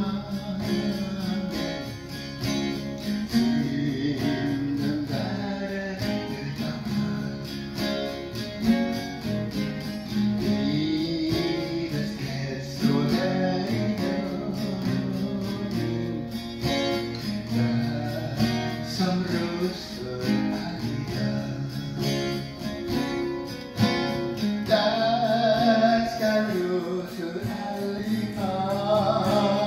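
A man singing in Swedish while strumming a Yamaha acoustic guitar capoed up the neck.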